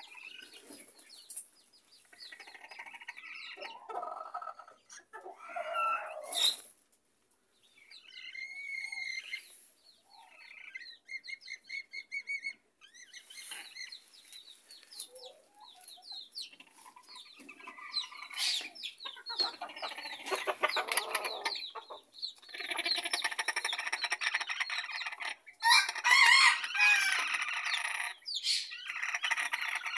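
Bantam chickens clucking and cackling in bouts, the calls growing louder and denser over the last third.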